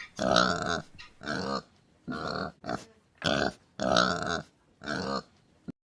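Pig grunting, a string of about eight short grunts with brief pauses between them.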